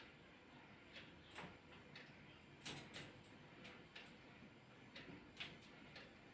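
Near silence with a few faint, scattered clicks, the clearest about two and a half seconds in and another about five and a half seconds in.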